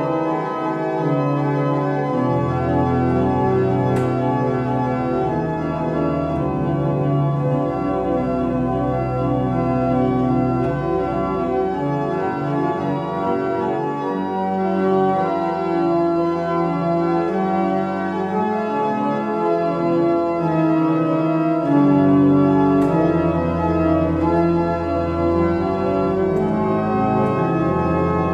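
Pipe organ playing an improvisation on Advent songs: held chords that change every second or two over long, low bass notes.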